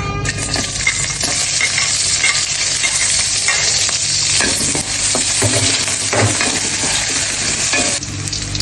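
Food sizzling in hot oil in a pan while being stirred, with scattered knocks and scrapes of the utensil against the pan.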